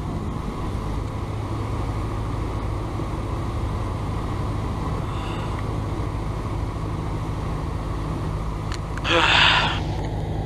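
Cessna 172's piston engine and propeller droning steadily, heard inside the cabin. A short, loud burst of hiss comes about nine seconds in.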